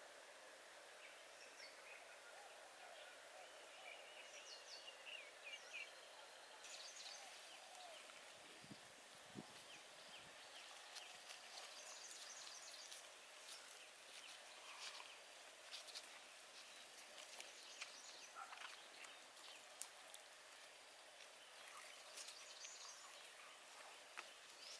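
Quiet forest ambience: a steady high hiss with a few short chirps, and scattered small clicks and taps.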